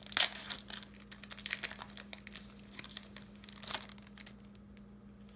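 Foil wrapper of a Pokémon trading-card booster pack crinkling as it is torn open and the cards are pulled out. It comes as a run of sharp crackles, loudest near the start, that die down about four seconds in.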